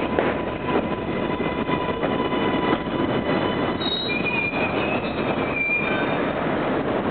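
New York subway trains running through an elevated station: a steady rumble of steel wheels on the track. An R42 car's wheels roll past at first, then high-pitched wheel squeal starts about four seconds in, as an R143 L train pulls in.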